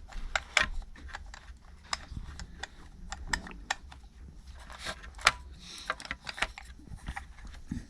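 Irregular light clicks and taps of small hard parts being handled and knocked together, over a faint steady low hum.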